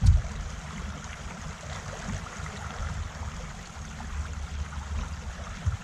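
River current rushing past a drift boat: a steady watery hiss over an uneven low rumble, with one brief low knock near the end.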